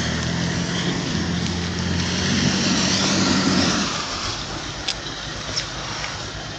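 Stuck pickup truck's engine revving in four-wheel drive while the wheels spin without getting out, then easing back about four seconds in.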